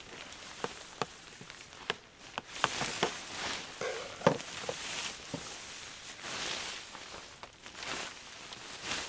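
Rustling of tent and bedding gear being handled, with scattered sharp clicks and knocks, as a sleeping place is set up in a small tent.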